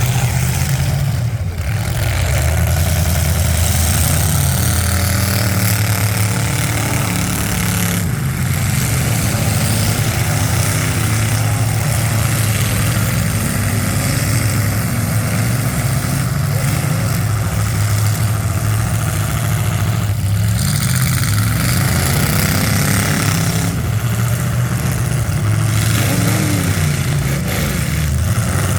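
Demolition derby cars' engines running loud, with pitch rising and falling as they rev, a few seconds in and again about two-thirds of the way through.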